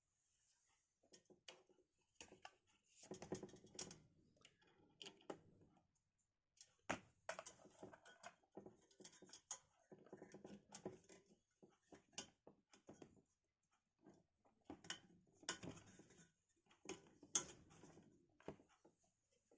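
Hands handling computer parts during a PC build: scattered sharp clicks and taps with short stretches of light scraping and rustling of plastic and metal, coming in clusters.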